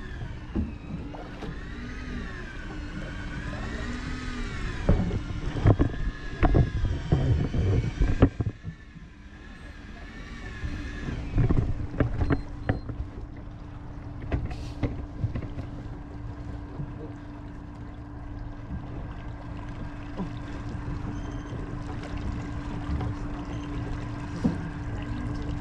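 Small boat's outboard motor running, its pitch rising and falling, with wind gusting on the microphone for about the first eight seconds. After that a steadier low hum carries on, with a single sharp click midway.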